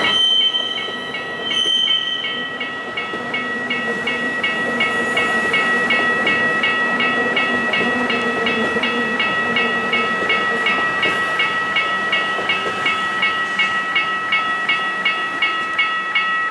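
Rhaetian Railway ABe 8/12 electric train with panoramic coaches passing over a level crossing: two short horn blasts about a second and a half apart right at the start, then the train running by with a steady whine and a fast, regular clicking of wheels over the rails.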